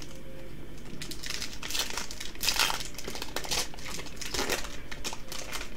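Foil wrapper of a Yu-Gi-Oh Lightning Overdrive booster pack being torn open and crinkled by hand. The crackling starts about a second in and goes on in uneven bursts.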